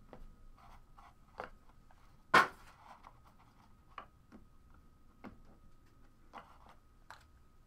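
Trading cards and cardboard card boxes being handled on a desk: scattered light taps and clicks, with one sharper knock about two and a half seconds in, over a faint steady whine.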